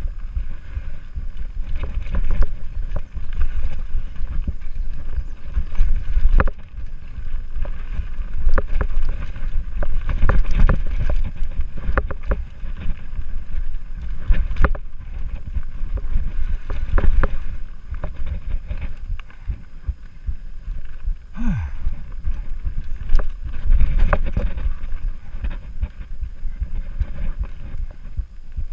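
Mountain bike riding fast down a dirt singletrack: a steady rumble of tyres on the trail and wind buffeting the GoPro microphone, with frequent knocks and rattles from the bike over the rough ground.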